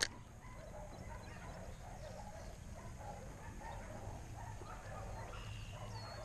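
Dogs barking faintly and repeatedly, with a sharp click at the very start.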